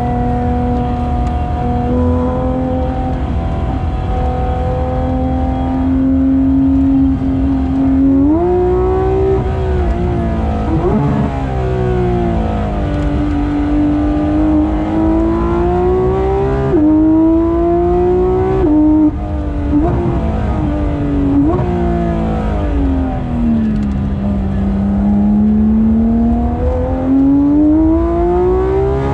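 Porsche 991.2 GT3 RS's naturally aspirated flat-six engine under track driving. Its note climbs slowly at first, then jumps sharply in pitch several times at gear changes in the middle. Near the end it dips low and climbs steadily again under acceleration.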